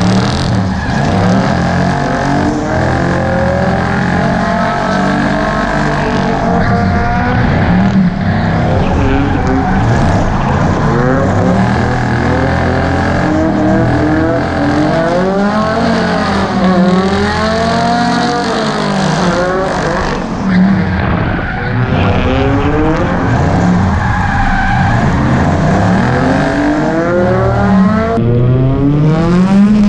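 Engines of drift cars in a tandem slide, revving hard. Their pitch rises and falls every second or two, over a steady hiss of tyres on a wet track.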